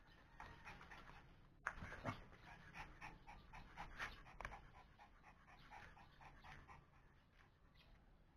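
Pomeranian panting quickly, about three breaths a second, loudest in the middle and tailing off near the end, winded from running about in play. A sharp click about a second and a half in.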